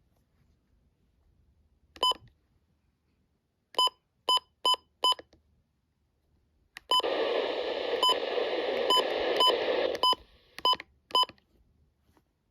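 Short electronic button beeps from a Midland weather radio: one, then a quick run of four. Then about three seconds of radio static, with more beeps over it, cutting off suddenly, followed by two last beeps.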